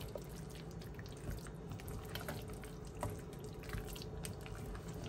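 A spoon mixing mashed potato in a bowl: scattered light clicks of the spoon against the bowl and soft wet sounds, over a steady low hum.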